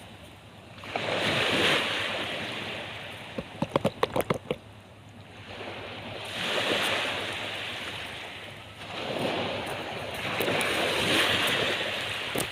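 Sea waves breaking and washing up the beach, swelling and easing several times. A quick run of about seven sharp clicks comes a few seconds in.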